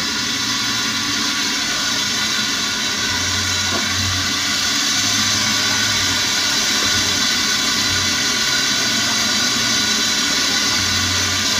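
Hot frying oil sizzling and bubbling in a large aluminium wok as it is heated briefly before the leftover fried chicken goes back in: a steady, even hiss. A low hum comes and goes underneath.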